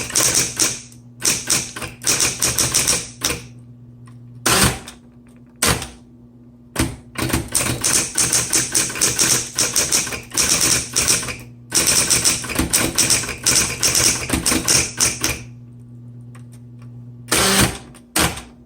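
Smith Corona Coronet Automatic 10 electric typewriter being typed on: quick runs of keystrokes in bursts with short pauses, over the steady hum of its running motor. A heavier clunk comes near the end.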